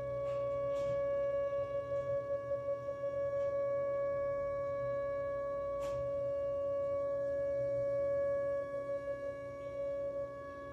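Whelen WPS 2909 electronic outdoor warning siren sounding a steady tone. The tone wavers quickly in loudness about a second in and again near the end, with a faint click about six seconds in.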